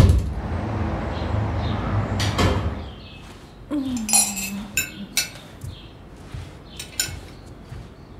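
Dishes and cutlery clinking: a rush of noise for the first two and a half seconds, then a handful of separate sharp clinks spread over the following seconds.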